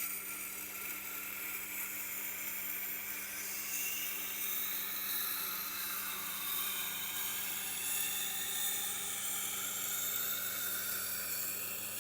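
Knife edge being ground on a Tormek grinding wheel, edge leading: a steady hiss of steel on the turning wheel over the low hum of the grinder's motor.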